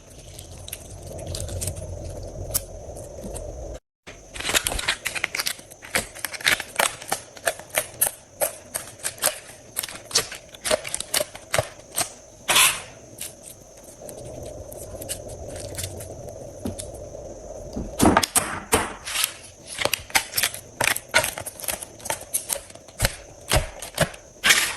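Slime being squeezed and pressed by hand, giving dense, irregular crisp pops and crackles, with a brief dead gap about four seconds in.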